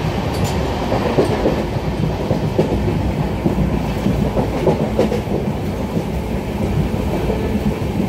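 Moving passenger train coach heard through its open doorway: a steady rumble of wheels on the rails, with the clickety-clack of rail joints and rattling of the coach.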